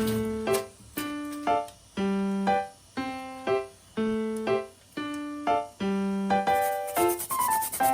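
Background music: a keyboard melody of piano-like notes, about two a second, each dying away. Near the end a rasping, scraping noise starts under it.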